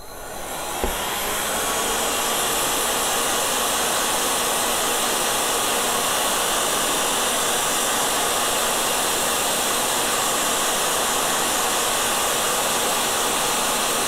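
Electric heat gun switched on, its fan and air rush building up over about a second and a half, then blowing steadily as it shrinks heat-shrink sleeving onto copper battery bus bars.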